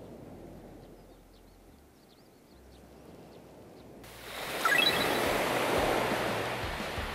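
Small waves breaking and washing up on a sandy beach: a soft, even wash at first, turning much louder and closer about four seconds in. A short run of high blips sounds just before five seconds.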